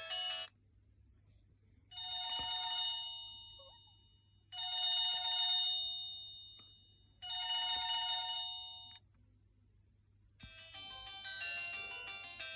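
Huawei G6153W mobile phone playing its preloaded ringtones: one ringtone sounds three identical rings about two and a half seconds apart, each fading out, after the last half-second of the previous tone. Near the end a different, busier melodic ringtone starts.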